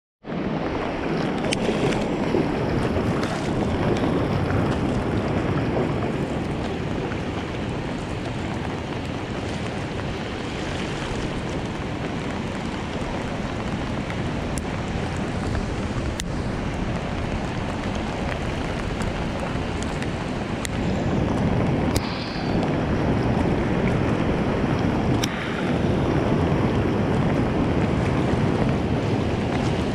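Steady rushing noise of wind buffeting the microphone and flowing water on the Colorado River, heard from a packraft, with a few sharp clicks scattered through it.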